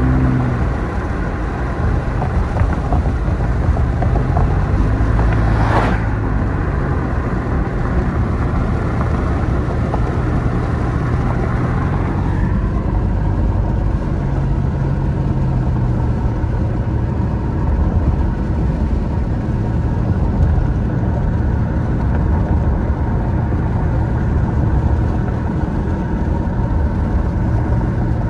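Steady road noise inside a moving car: engine and tyre rumble whose low drone shifts slowly with speed, with one short click about six seconds in.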